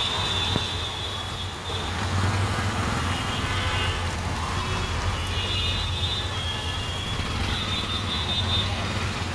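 A motor tricycle's engine running steadily, a constant low hum.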